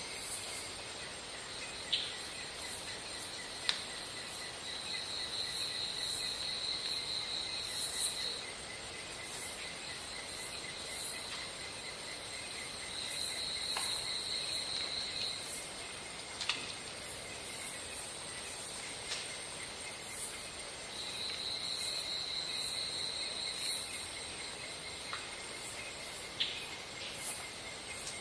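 Insects calling outdoors: a steady high-pitched buzz, with a louder trill lasting two to three seconds that comes back about every eight seconds. A few short sharp clicks are scattered through it.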